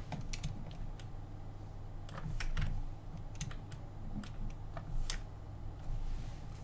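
Irregular clicks of a computer keyboard and mouse, a few taps a second, over a low steady hum.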